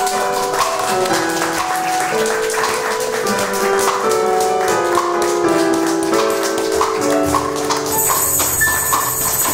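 Music: a keyboard melody of held notes over a steady tapping percussion beat. A high, steady shimmer joins near the end.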